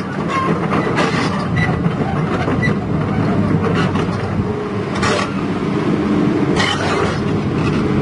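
Komatsu PC200 excavator travelling on its steel crawler tracks: the diesel engine runs steadily under a continuous clatter of track links and rollers, with sharper metal clanks and squeaks now and then, two of them standing out about five and nearly seven seconds in.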